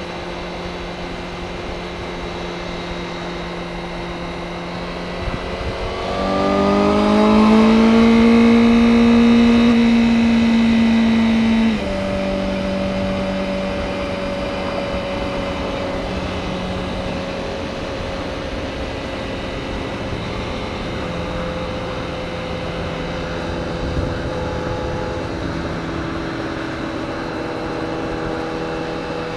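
2023 Honda CBR Fireblade's inline-four engine running under way. The revs rise about six seconds in and hold there, louder, then drop suddenly about halfway through, and the engine settles back into steady running.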